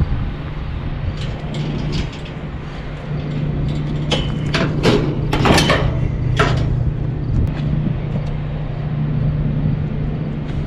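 Truck engine idling steadily, with several sharp knocks and clatters about halfway through.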